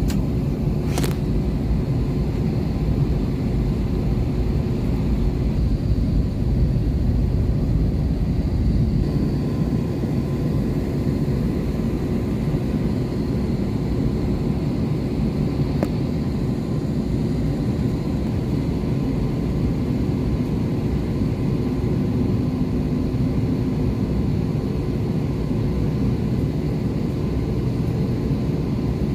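Inside a taxiing jet airliner's cabin: a steady low rumble from the engines at taxi power with a constant hum, and a single click about a second in.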